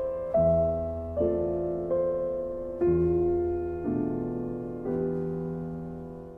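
Solo piano playing slow chords, a new chord struck about once a second and left to fade.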